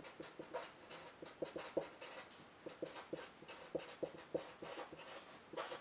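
Felt-tip marker writing capital letters on paper: short, quick scratchy strokes, a few a second, with brief pauses between letters.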